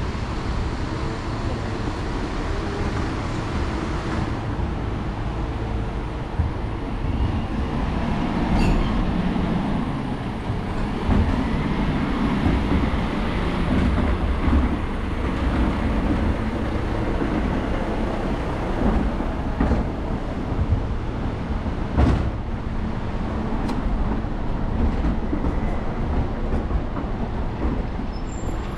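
Steady city-street rumble of a rail vehicle running close by, its wheels on the rails, over traffic noise, with a single sharp knock late on.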